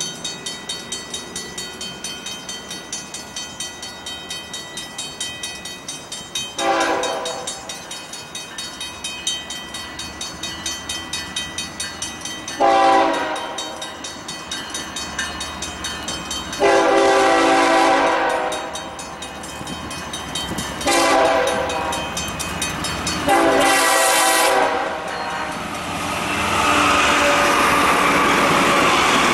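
Mechanical railroad crossing bell ringing steadily while a BNSF freight locomotive's air horn sounds the grade-crossing signal: a short toot, then long, long, short, long, the horn blasts being the loudest sounds. Near the end the locomotives and cars roll past close by with a heavy rumble of engines and wheels.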